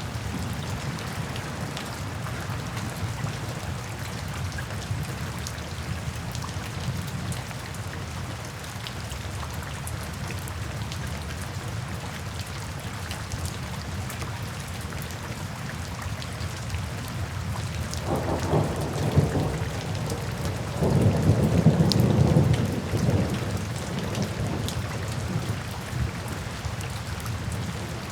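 Steady rain falling, with thunder rumbling in two swells about two-thirds of the way through, the second the louder, lasting around five seconds before the rain alone carries on.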